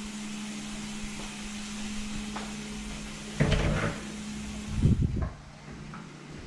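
A door being opened and handled, with a burst of knocks and bumps about three and a half seconds in and a couple more thumps near five seconds. Under it runs a steady hiss and a low hum, and the hum stops once the door has been worked.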